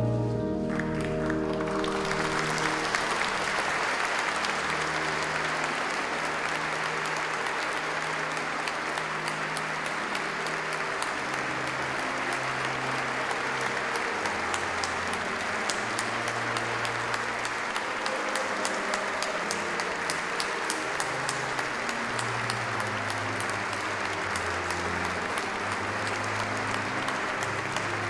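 Congregation applauding, starting about two seconds in and keeping up steadily, over music with sustained low notes.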